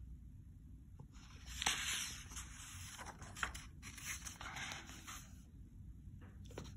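Pages of a paperback picture book being turned by hand: faint paper rustling and swishing, once about a second and a half in and again from about three and a half to five seconds.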